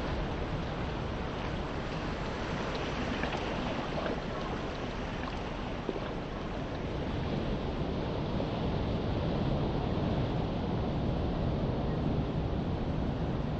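Sea waves washing on the shore, with wind rumbling on the microphone.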